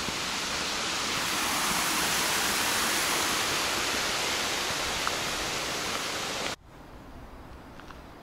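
Steady rushing of fast-flowing water, an even hiss spread across all pitches, which cuts off suddenly about six and a half seconds in, leaving much quieter background.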